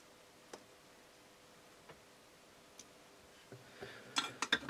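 Small handling noises on a workbench during soldering: a few faint ticks, then a quick run of clicks and rustling near the end as the soldering tools are put down and the next items are picked up.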